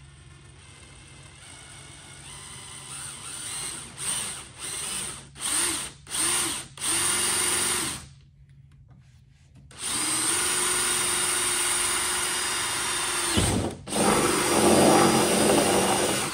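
Cordless drill with a half-inch bit boring a hole through a plastic kayak hull, run slowly. The whine builds gradually, comes in about four short bursts, then runs in three longer stretches separated by brief stops, the last one loudest.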